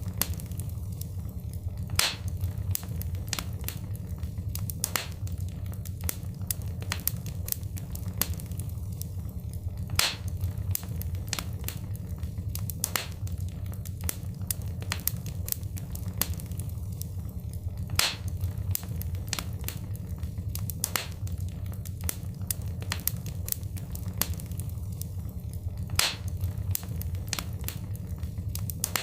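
Wood fire crackling in a fireplace: frequent sharp snaps and pops over a steady low rumble of burning, with a louder pop about every eight seconds.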